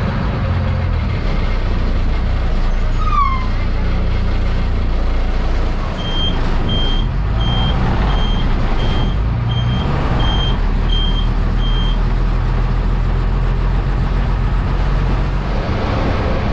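MSRTC bus engine running steadily with vehicle rumble. About six seconds in, a run of about nine short, evenly spaced high-pitched beeps, roughly one every 0.7 seconds, like a reversing alarm, lasting about six seconds.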